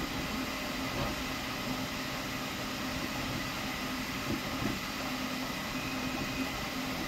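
Flashforge Adventurer 5M Pro core-XY 3D printer printing at high speed: a steady mechanical whir from the moving print head, with a low hum that drops out briefly now and then.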